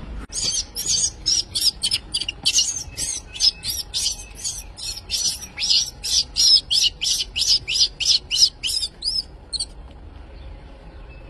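Baby macaque crying in a rapid run of short, high-pitched squeals, about three a second, which stop near the end.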